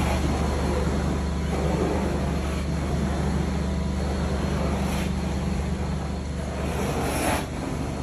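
Carpet extraction wand cleaning carpet: a steady rush of suction air and water through the wand and hose, over a steady low hum from the extraction machine. One louder hiss comes near the end.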